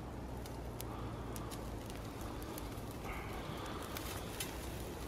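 Breath blown into a smouldering dry-grass tinder nest lit from a char-cloth ember, with scattered faint crackles and the rustle of the dry grass as it is handled.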